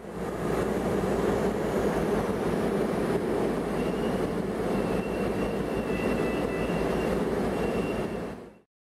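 Resort people-mover tram running, a steady rumble with a thin high squeal or whine that joins in about four seconds in.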